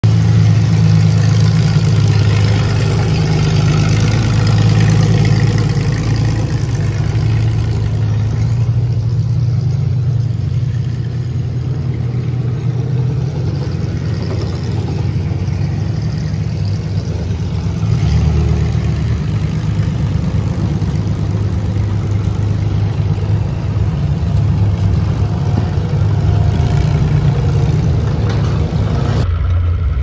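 Demolition derby car engines running loudly, rising and falling as they are revved. About 29 seconds in the sound cuts sharply to a duller, closer engine running, heard from on board a derby car.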